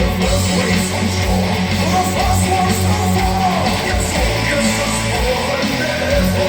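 Guitar-driven rock music with bass and a steady low beat, played loudly through vintage Estonian 25ACA-11 loudspeakers driven by a C-Audio ST 400 amplifier.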